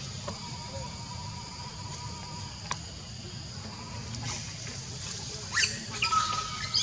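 Steady high-pitched insect drone over a low outdoor rumble. A few sharp rustles and a short squeak come near the end.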